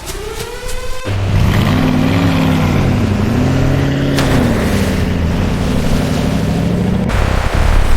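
An engine running steadily and loudly; its pitch dips about two seconds in and comes back up, and the sound changes abruptly near the end.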